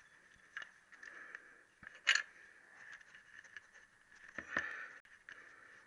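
Scattered light metallic clicks and scrapes as the oil drain plug under a Triumph T120R's oil-bearing frame is unscrewed by hand, with a sharp click about two seconds in and a louder knock and scrape about four and a half seconds in.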